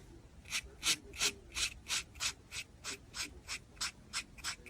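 Rhythmic rasping strokes of something rubbing back and forth on a rough surface, about three strokes a second and evenly spaced.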